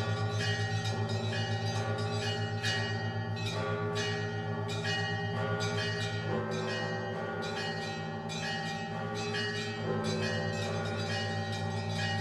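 Russian Orthodox church bells rung together, calling to the All-Night Vigil. Small bells are struck over and over above the pulsing low hum of a large bell, and deeper bells join about halfway through and again near the end.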